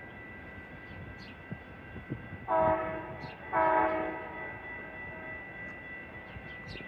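Passenger train's air horn sounding two short blasts about a second apart as the train approaches, each a full chord of several pitches.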